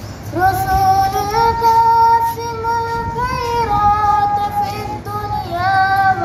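A young girl singing an Urdu naat solo into a microphone. She holds long, steady notes that bend into short ornamented turns, with a fresh phrase starting near the end.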